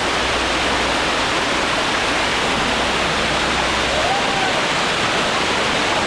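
Dunn's River Falls: the steady rush of water cascading down the rock terraces of the falls.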